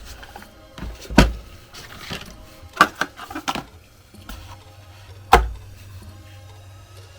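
Apple 35W Dual USB-C charger and its packaging being handled on a table: a few separate knocks and clicks with dull thuds, the loudest about a second in and about five seconds in, and a quick run of clicks around the middle.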